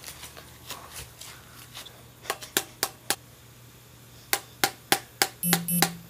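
Sharp hard taps, eight of them in two even runs of four at about four a second, followed near the end by two short buzzy tones, as the pieces of a smashed flip phone are handled.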